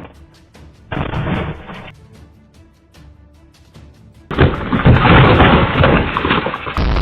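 Music with a steady beat, overlaid by loud booming, rumbling noise: a short blast about a second in and a longer, louder stretch from about four seconds in.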